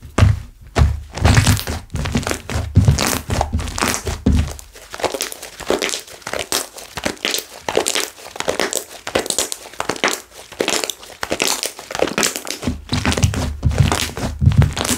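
Hands working slime, with dense rapid crackling and popping of air bubbles being squeezed and stretched. Repeated soft thuds come from pressing or slapping it, stopping about five seconds in and returning near the end.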